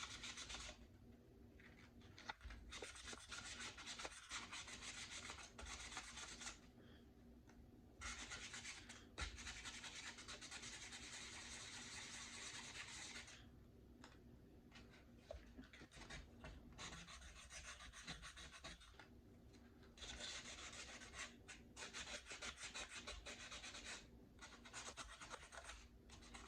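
Sandpaper rubbed by hand on a Glock pistol barrel in quick back-and-forth strokes, in bouts of a few seconds with brief pauses between them. The sanding is wearing the black finish off toward bare, polished metal.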